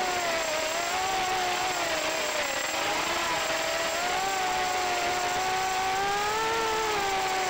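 FPV racing quadcopter's electric motors and propellers whining, several tones together that dip and rise in pitch as the throttle changes, over a rushing noise.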